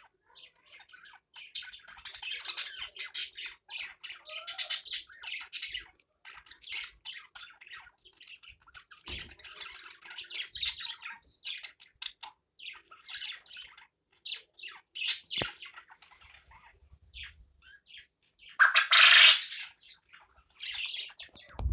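Male quail calling: a run of short, scratchy chirps and squawks at irregular intervals, with one louder, longer call near the end.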